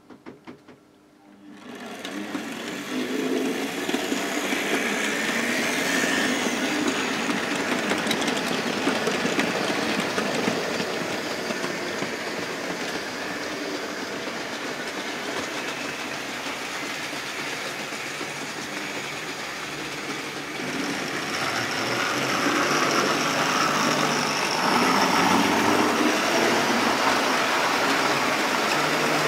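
OO gauge model trains running on the layout: small electric motors whirring and wheels clicking over the rail joints. It begins about two seconds in and grows louder from about twenty seconds in, as a train of coaches passes close by.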